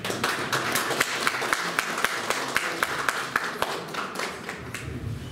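A small group applauding. Dense, even clapping thins out near the end.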